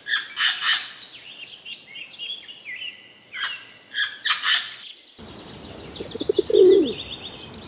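A parrot calling with harsh squawks, about five of them, with chirping notes in between. Then a pigeon gives a low falling coo while small birds chirp in a run of falling high notes.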